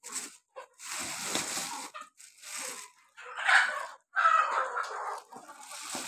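A woven plastic feed sack crinkling and rustling as it is handled right at the microphone, in a run of separate bursts, with Kadaknath chickens clucking.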